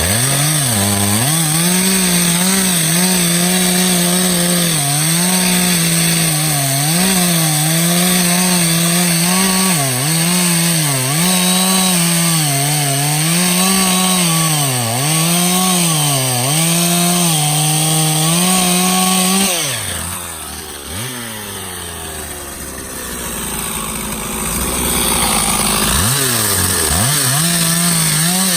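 Stihl chainsaw cutting oak at full throttle, its revs dipping and recovering about once a second as the chain bites into the wood. About twenty seconds in it drops to idle, then revs back up near the end.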